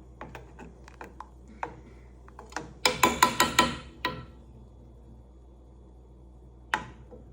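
A spoon stirring a milk mixture: light scattered clicks, then about a second of rapid ringing clinks against the side of the container, and one more clink near the end.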